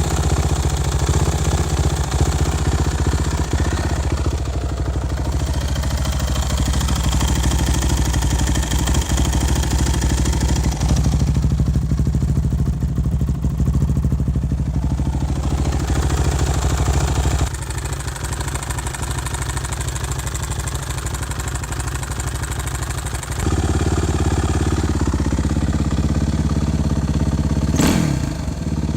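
2006 Suzuki RM-Z450's single-cylinder four-stroke engine running at idle, with a clattery top end; the owner puts this noise down to a loose cam chain that the stock cam chain tensioner does not take up. It gets quieter about 17 s in, comes back up about 6 s later, and gets a short blip of throttle near the end.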